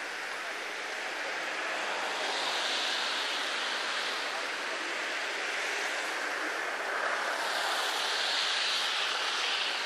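A steady rushing outdoor noise, swelling twice, without any distinct event.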